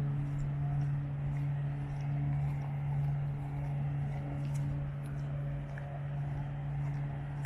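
A steady low mechanical hum, like a motor or engine running, with a fainter higher tone above it that comes and goes.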